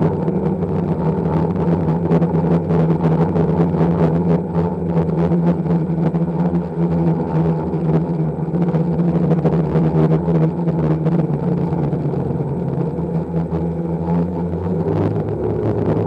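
Octocopter's electric motors and propellers humming steadily in flight, heard from the onboard camera, with gusty wind buffeting the microphone.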